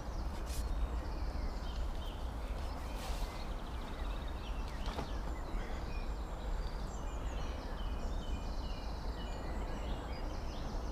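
Birds chirping and calling over steady outdoor background noise with a low rumble; the calls are busiest in the second half.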